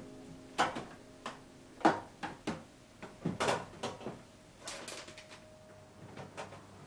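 Refrigerator being handled with its door open: a string of light knocks and clunks from items in the door shelf, the loudest about two seconds in.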